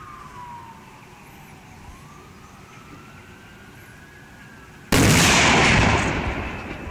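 Anvil shoot: a black-powder charge between two anvils fires with a single sudden, very loud blast about five seconds in, launching the top anvil into the air. The blast dies away over about a second and a half.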